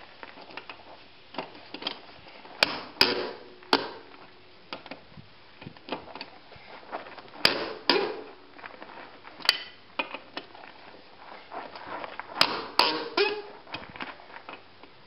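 Irregular knocks and clanks of hand tools working on a van's wheel during a tire change, in clusters a few seconds apart, some ringing briefly.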